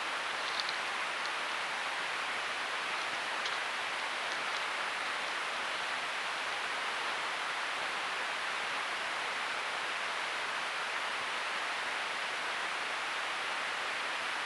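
Steady, even hiss that does not change, with a few faint short ticks in the first five seconds.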